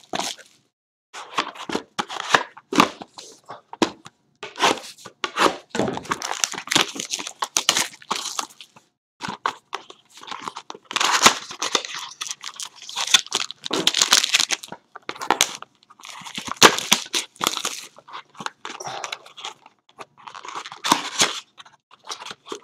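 A sealed box of trading cards being unwrapped and opened by hand: plastic wrap tearing and crinkling in irregular bursts, with packaging rustling.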